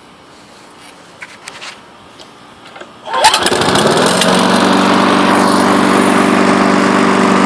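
Push lawn mower's small engine starting up. After a few faint clicks it catches about three seconds in, its pitch rising briefly, then runs steadily.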